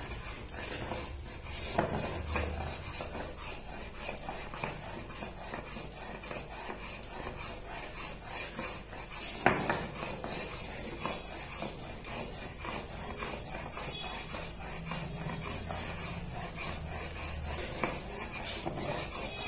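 Stone roller (nora) worked back and forth over a flat grinding stone (shil), wet-grinding coriander leaves into paste: a steady gritty stone-on-stone scraping, with two sharper knocks, one near the start and a louder one about halfway through.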